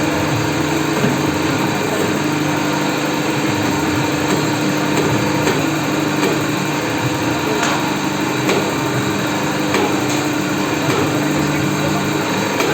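Hydraulic press power unit running: the electric motor and pump give a steady hum. A few faint clicks or knocks come around the middle.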